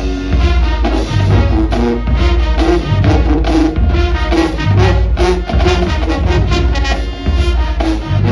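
Marching band playing: loud brass with heavy sousaphone bass notes over a steady drumline beat.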